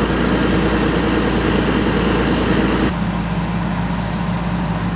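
Engine idling steadily with a low hum. About three seconds in the sound changes abruptly and the higher hiss drops away, leaving the low engine hum.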